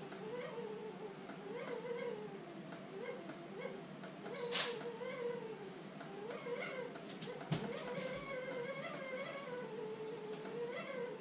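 Long, wavering wailing cries like an animal's, one drawn-out phrase after another, rising and falling in pitch. Two sharp knocks come through, one a little before the middle and one about two-thirds of the way in.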